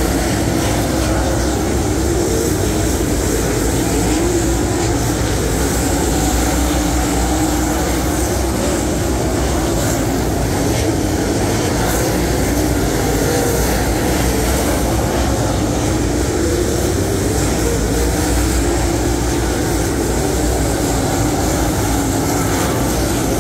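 A field of dirt late model race cars running at speed around a clay oval, their V8 engines making a steady, loud drone.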